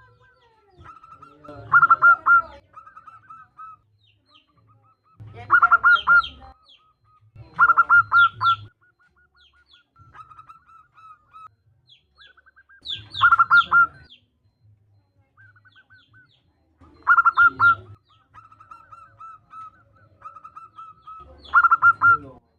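Female zebra dove (perkutut) calling: six loud, short bursts of rapid cooing notes about every four seconds, with softer quick trilling notes between them. The call is meant to entice male perkutut to sing.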